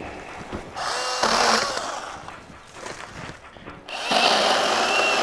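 Makita MUC101D 18V cordless handy chainsaw, run in two short bursts: the motor whines up and the chain cuts through small branches, first about a second in and again near the end.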